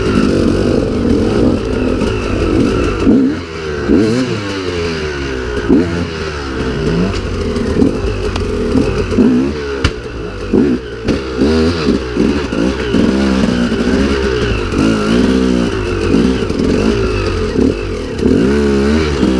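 Two-stroke KTM EXC enduro motorcycle engine revving up and down over and over at low speed on a rough trail, with clatter and knocks from the bike.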